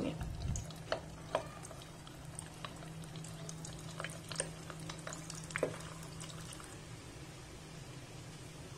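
Minced-meat koftas deep-frying in hot oil in a pot: a steady bubbling sizzle, with a few sharp clicks and pops scattered through and a faint steady low hum underneath.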